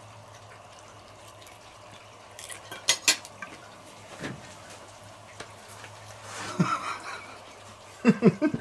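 Knife and fork clinking and scraping against a plate as food is cut, with a few sharp clicks about three seconds in and a few lighter ones later.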